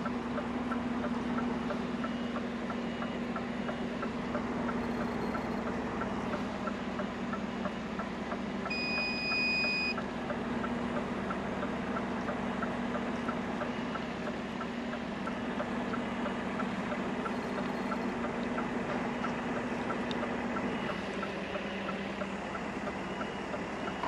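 HGV lorry's diesel engine running steadily, with a light regular ticking about twice a second and a single electronic beep a little before half way through.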